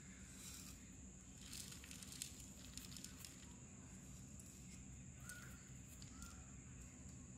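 Near silence: faint outdoor room tone with a steady high-pitched whine and a low hum, broken by a few faint short clicks through the middle and second half.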